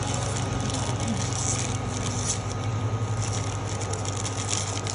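Shabu broth bubbling at a rolling boil in a divided stainless-steel hot pot, a dense fine crackle over a steady low hum.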